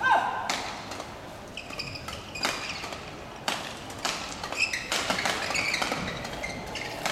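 Badminton being played in a large hall: sharp racket strikes on shuttlecocks, roughly one a second, with short high squeaks of shoes on the court mats.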